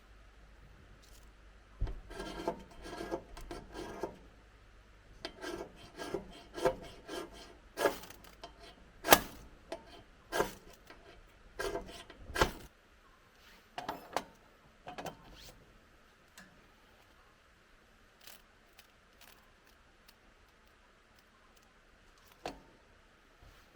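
Quick runs of rasping, rubbing strokes, then several sharp knocks and clacks of hard objects, then a few faint taps.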